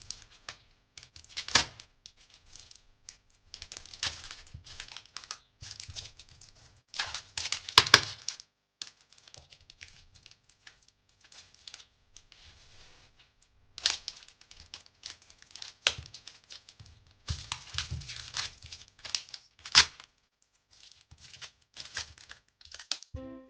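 Adhesive tape pulled off its roll in irregular ripping pulls, with rustling handling between them, as it is wrapped around a sneaker to hold a glued sole in place.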